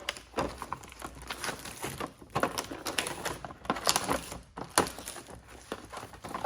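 Irregular light clicks and knocks of plastic trim pad tools being handled and taken out of their holder.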